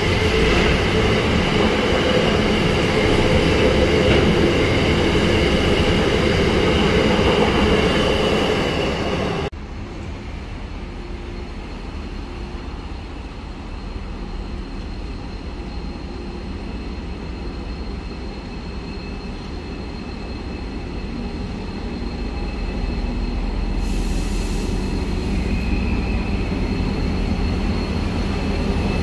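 Container freight train wagons rumbling past on the rails with a steady high wheel squeal, cut off abruptly about a third of the way in. Then a quieter stretch as SSR diesel locomotive G513 approaches, its low engine rumble growing louder near the end.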